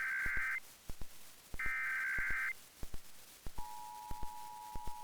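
Emergency Alert System SAME header bursts: two harsh warbling data bursts of about a second each, followed about 3.5 seconds in by the steady two-tone EAS attention signal. Faint irregular clicks run underneath.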